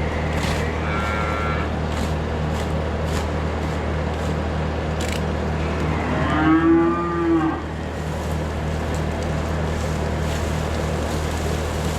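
A cow moos loudly once, for about a second and a half, some six seconds in, over the steady drone of an engine running; a fainter, higher call sounds near the start.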